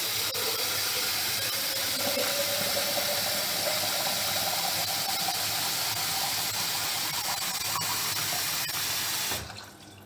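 Water running steadily into a container to fill it, with a faint tone that rises slightly as it fills; the flow stops about nine seconds in.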